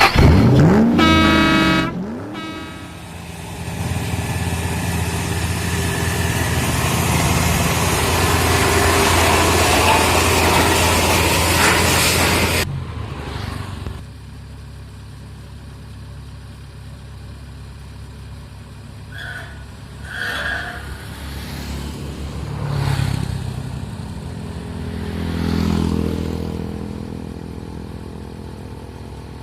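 Kubota DC-70 Plus combine harvester's diesel engine running, loud and steady for the first half before cutting off abruptly about 13 seconds in. It continues at a lower level with a few swells in the engine note, after a brief pitched sound at the very start.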